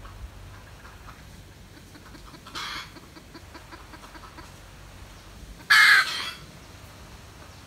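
Red junglefowl calling: a short call about two and a half seconds in, then a louder, harsher one about six seconds in.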